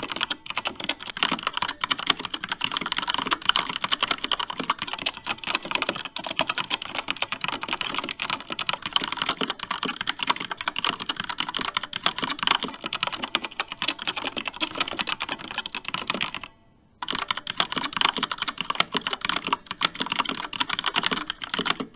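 Continuous fast typing on a mechanical keyboard with linear red switches: a dense, irregular stream of key clacks, broken by a half-second pause about sixteen seconds in.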